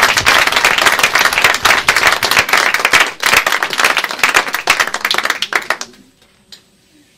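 Audience applauding: dense clapping from many hands that thins out and stops about six seconds in.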